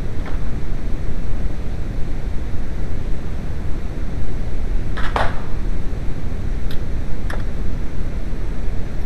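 Steady low rumble with a few sharp clicks from hand tools and the plastic engine undertray being handled: a brief scrape about five seconds in, then two quick clicks.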